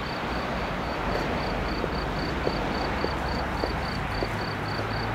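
A cricket chirping evenly, about five high chirps a second, over steady outdoor background noise, with a few faint knocks and rustles as a seated audience settles onto chairs.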